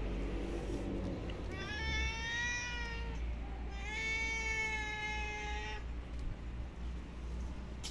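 A cat meowing: two long, drawn-out meows, the second longer than the first.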